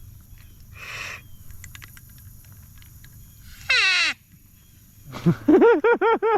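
Duck-like quacking from a duck call: a loud falling squawk near the middle, then a rapid run of nasal quacks, about five a second, near the end.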